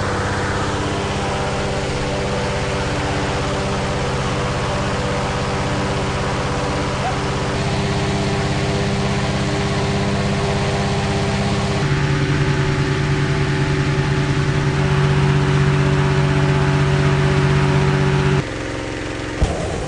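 Hot air balloon's propane burner firing in one long burn to heat the envelope and make the balloon lighter. It is loud and steady with a held hum, gets louder and changes pitch about 8 and 12 seconds in, and cuts off suddenly near the end.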